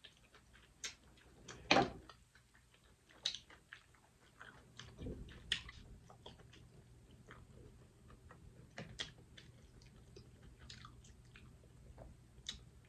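Close-miked mouth sounds of someone eating green-lipped mussels: soft chewing with scattered sharp wet clicks and smacks, the loudest about two seconds in.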